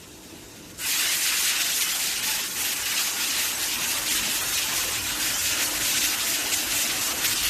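Coolant spraying inside a CNC drilling and tapping machining center: a loud, steady, gushing hiss that switches on abruptly about a second in, over a fainter hiss of liquid before it.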